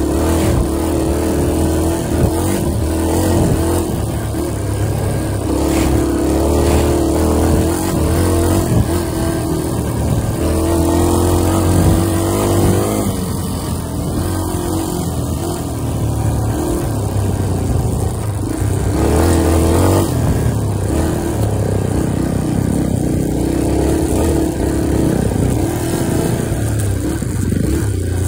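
Dirt bike engine running as it is ridden along a rough dirt trail, its pitch rising and falling as the throttle opens and closes.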